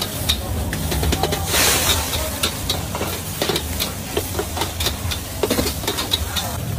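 Metal spatula scraping and clicking against a wok as food is stir-fried over a high gas flame, with frying sizzle and a steady low burner rumble beneath. A louder burst of hiss comes about a second and a half in as the flames flare.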